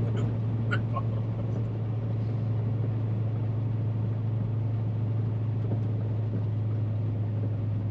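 Loaded dump truck's diesel engine running with a steady low drone, heard from inside the cab.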